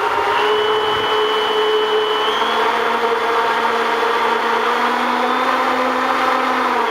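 Electric motors and propellers of a radio-controlled Cessna Skymaster 336 model run up on the bench at high throttle: a loud, steady whine with propeller hiss, stepping up in pitch about two seconds in and winding down at the end. It is a run-up to check for vibration before the maiden flight.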